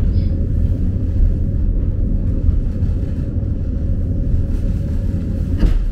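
Hakone Tozan Railway electric train running along the track, heard from inside the car: a steady low rumble with a faint steady hum, and a single knock near the end.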